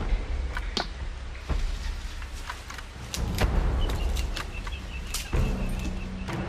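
A capuchin monkey cracking palm nuts by pounding them with a stone hammer on a rock anvil: a series of sharp stone-on-stone knocks at irregular intervals, about eight in six seconds.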